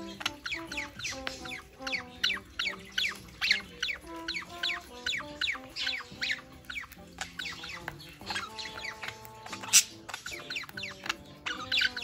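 Budgerigars chirping and chattering in many quick falling chirps, over soft background music with a stepping melody. A single sharp click about ten seconds in.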